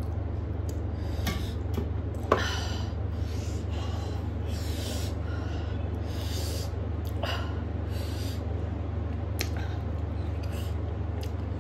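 Close-up eating sounds: chewing and lip-smacking, with fingers squishing rice and fish curry against a metal plate. There is a sharp knock about two seconds in, over a steady low hum.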